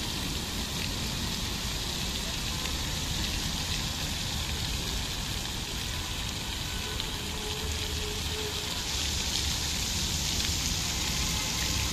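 Ornamental water fountain: jets of water spraying up and splashing down onto the pond surface in a steady, rain-like hiss.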